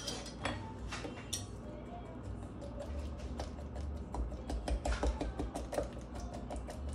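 A pointed hand tool jabbing rapidly into raw duck skin on a wooden cutting board, making quick repeated taps. A few scattered clicks come first, then fast tapping from about halfway in. The skin is being pricked so the fat can render out while roasting.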